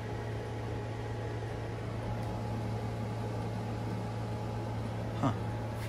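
Steady low electrical hum with a faint whine over it, and one short knock about five seconds in.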